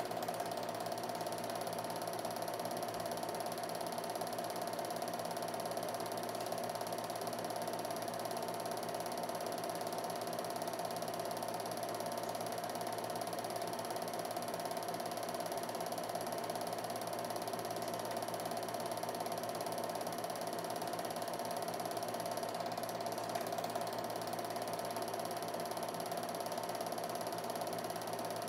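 Film projector running: a steady mechanical whir with constant tones from the motor and film transport, as a silent home movie is played.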